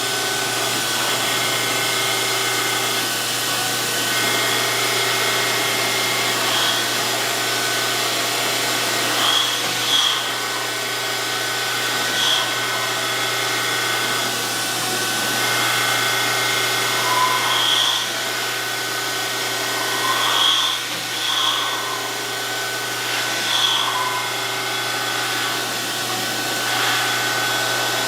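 DoAll 14-inch surface grinder running steadily with a constant hum and whine, plus a tone that comes and goes every two to three seconds as the powered table strokes back and forth. Brief louder sounds recur several times in the second half.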